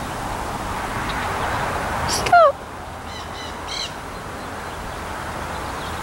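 Nanday parakeet giving one loud, harsh squawk that falls in pitch about two seconds in, followed by a few fainter high chirps. Leaves rustle in the wind underneath.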